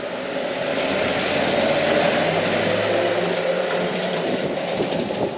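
A heavy road vehicle's engine passing by, swelling to its loudest about two seconds in and then fading, its low engine note dropping away a little past halfway.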